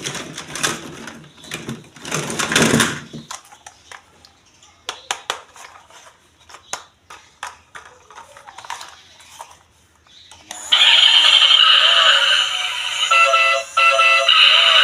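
Rustling and crinkling of plastic toy packaging, then a series of sharp clicks and taps from the toys being handled. About two-thirds of the way in, loud electronic music with a synthetic voice starts suddenly and keeps going.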